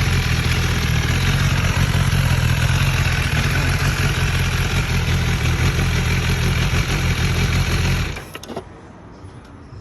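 BMW S1000RR's inline-four engine idling steadily while warm, then switched off about eight seconds in.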